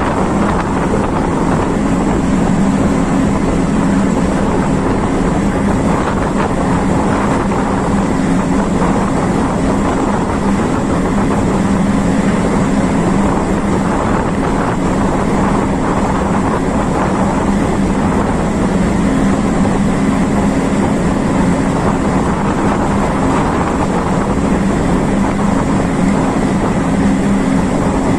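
A vehicle engine running steadily at a constant speed: an even low hum over a rushing noise, with no change in pitch.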